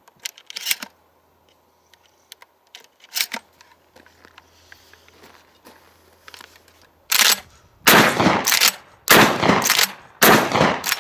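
Derya CRT-401 pump-action shotgun firing mini slugs: four loud shots in quick succession, about a second apart, in the second half. Light clicks of handling come before them.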